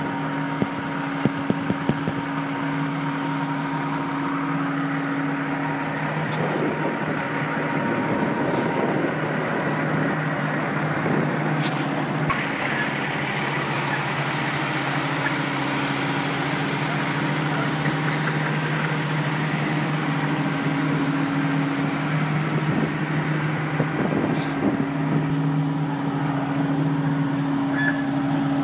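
John Deere 200LC excavator's diesel engine running at a steady idle, with a few clicks in the first two seconds.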